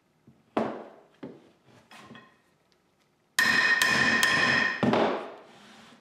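Hammer blows on a steel drift, driving the starter ring gear off a flywheel; the steel rings after the strikes. Three lighter knocks come first, then a loud stretch of ringing metal with strikes in it lasting about a second and a half, and a last blow that rings away.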